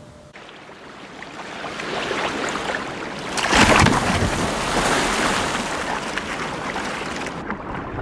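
A killer whale splashing in a pool: water churning louder and louder, then a big splash about three and a half seconds in as the whale surges up, and the spray falling back and fading out.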